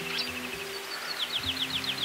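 Background music of held, slowly changing low notes, with birds chirping over it; a little past the middle a bird gives a quick run of about eight short falling notes.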